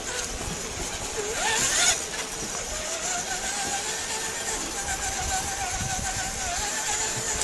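Electric motors and geared drivetrains of scale RC crawlers whining as they drive. The whine climbs sharply about a second and a half in, then holds a steady, slightly wavering pitch.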